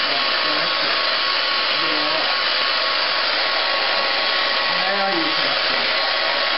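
Handheld hair dryer blowing steadily on a small dog's damp coat, a constant rush of air with a thin steady whine in it.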